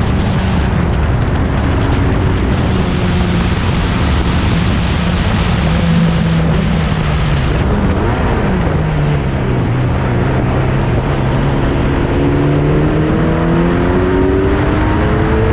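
Racing car engine of a 1960s sports prototype running hard on a circuit. Its pitch drops about halfway through, holds low for a few seconds, then climbs again near the end as it accelerates.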